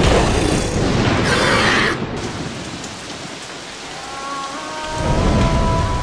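Thunderstorm sound effect: a loud clap and roll of thunder that falls away after about two seconds into steady rain. Another low rumble of thunder builds near the end, as a soft melody comes in.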